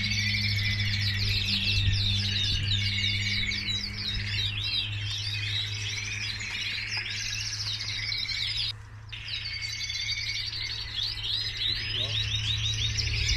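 Many canaries singing at once, a dense chorus of fast trills and chirps, over a steady low hum. The chorus drops out for a moment about nine seconds in.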